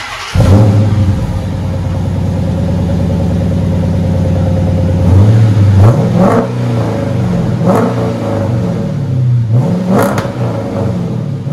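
2011 Dodge Charger R/T's 5.7-litre HEMI V8 starting through a dual exhaust with Flowmaster Flow FX mufflers and the resonators deleted. It fires with a loud flare and settles into a steady idle. From about five seconds in it is revved three times, each rev rising and falling back to idle.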